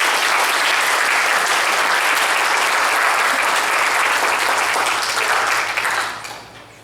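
Congregation applauding: steady clapping that fades out about six seconds in.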